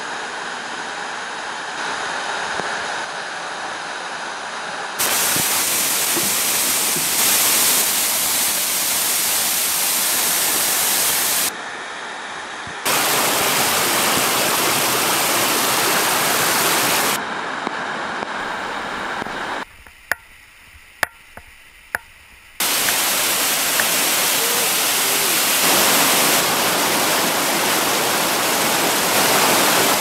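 Waterfall, a steady rush of falling water that jumps abruptly in level several times. About two-thirds through it drops to a quieter stretch of about three seconds with a few sharp clicks.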